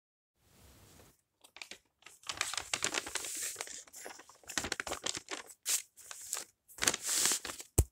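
Sheets of paper rustling and crinkling as they are handled and turned over, in uneven bursts with quick crackles. One short sharp knock comes just before the end, the loudest moment.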